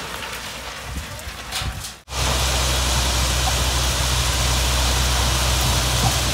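A low, even gravel hiss of ballast stone flowing out of a spreader box. About two seconds in, it switches abruptly to the steady running of a rail-mounted track maintenance machine's diesel engine, a constant low hum with an even hiss over it.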